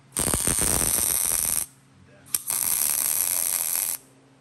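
Wire-feed welder's arc crackling on steel in two bursts of about one and a half seconds each, with short pauses between the welds and a brief tick in the first pause.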